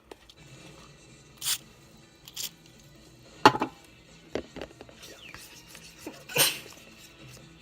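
Clear-glue slime being stirred and worked in a container as the spray activator sets it: irregular scraping and rubbing strokes, with a sharper knock about three and a half seconds in.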